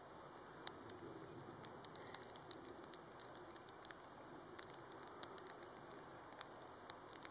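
Faint rain: a steady hiss with single drops ticking irregularly on a nearby surface.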